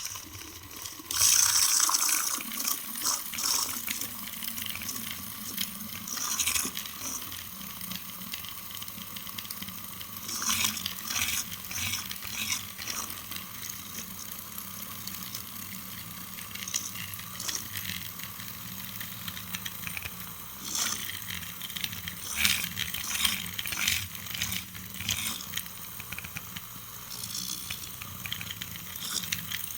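Water running or being poured, with scattered sharp clicks and clinks of parts being handled.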